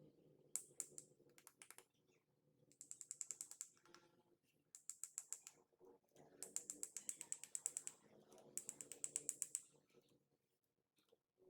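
Skyloong GK84S mechanical keyboard keys pressed over and over in quick runs, about five bursts of rapid clicking with short pauses between. This is a key shortcut being tapped repeatedly to cycle through the lighting effects.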